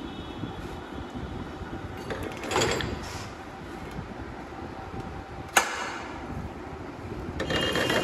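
A ring spanner tightening the magneto (flywheel rotor) nut on a Honda Dream Yuga engine while the rotor is held with a strap holder. Two brief scrapes come about two and a half seconds in and near the end, and one sharp metallic click, the loudest sound, comes a little past halfway, over steady workshop background noise.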